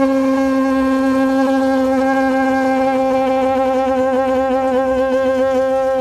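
Conch shell (shankha) blown in one long, loud, steady note that wavers slightly in the middle.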